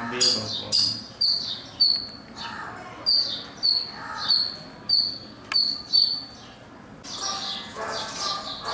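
House sparrows chirping: a steady series of short single chirps, about two a second, giving way after about seven seconds to a busier mix of overlapping calls.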